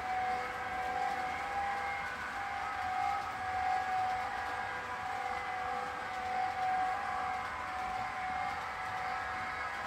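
H0 model train running on the layout: a steady whine of several held high tones from the running locomotive, wavering slightly in loudness.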